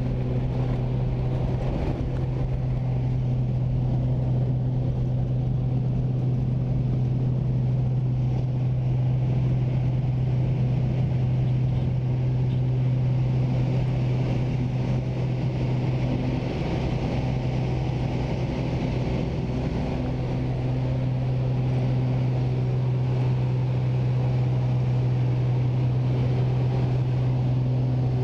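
Small single-engine plane's engine and propeller droning steadily at takeoff power, heard from inside the cabin. A rushing air noise grows about halfway through as it takes off and climbs.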